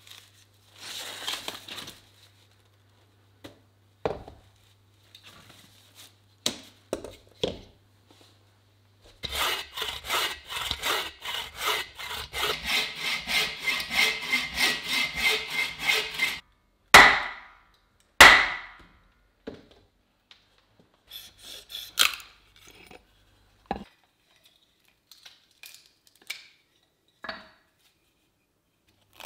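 Hand saw cutting through a log on a chopping stump with steady back-and-forth strokes, about three a second, for some seven seconds. Two loud sharp knocks of wood follow, with scattered lighter knocks and rustles of wood before and after.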